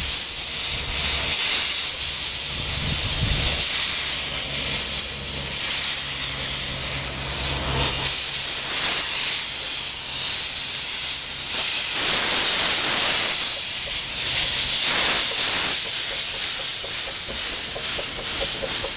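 Krauss-built 0-4-0 steam tank locomotive 'The Bug' hissing steam from its open cylinder drain cocks as it moves slowly past. A low steady hum runs underneath and stops about eight seconds in.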